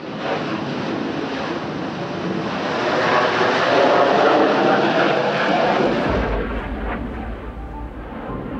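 F/A-18 Hornet fighter jet taking off, the roar of its twin turbofan engines building to its loudest about four seconds in. Near six seconds the sound changes to a duller, deeper rumble as the jet climbs away overhead.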